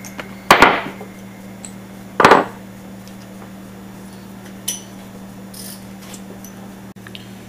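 Hand tools and parts being handled at a car's engine bay: two short knocks about two seconds apart, then a few faint clinks, over a steady low hum.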